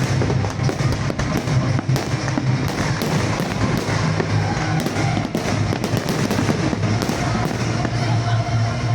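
Aerial fireworks going off in a rapid, continuous string of bangs and crackles.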